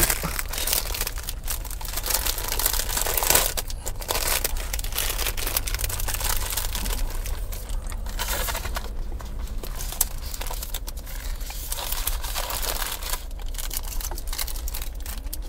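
Wrapping on an apple pie crinkling and tearing as it is opened by hand, in irregular rustles.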